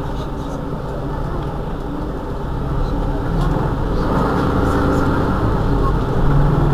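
Mercedes-Benz Citaro G C2 articulated bus's engine running with the bus under way, a steady hum over road noise. The engine note grows louder about three seconds in and again near the end.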